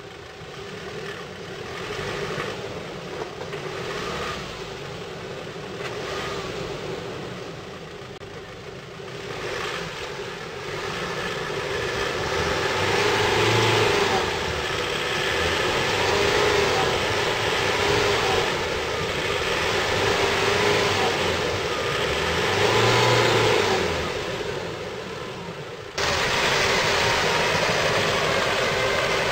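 Land Rover Defender 90 diesel engine working off-road, its revs rising and falling again and again under load. Near the end the sound cuts abruptly to a steadier, louder drone.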